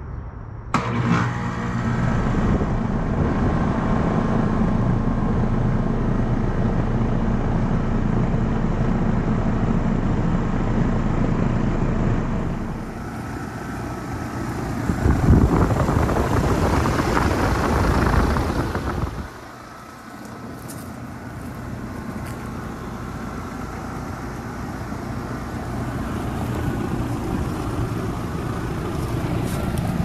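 A 2013 Rheem Value Series central air-conditioner condensing unit starts with a sudden clunk about a second in, then its compressor and condenser fan run with a steady hum and whoosh of air. For a few seconds past the middle the rush of air is much louder, then drops back to the steady running sound.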